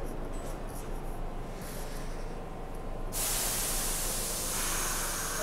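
R62A subway train standing in the station with a low steady hum, then about three seconds in a sudden loud hiss of compressed air venting from the car's air system, which keeps going.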